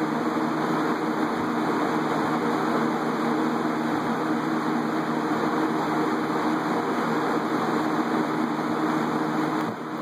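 A 1970s Hoover E1501 20-inch single-speed box fan, with a McMillan motor, running at its only speed: a steady rush of air over a steady motor hum.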